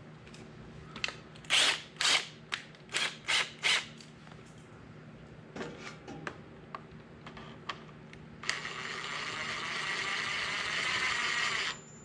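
A series of sharp clacks and clicks from tools and parts being handled, then a Ryobi cordless driver's motor running steadily for about three seconds near the end, turning a fastener at the tractor's carburetor. It stops just before the end.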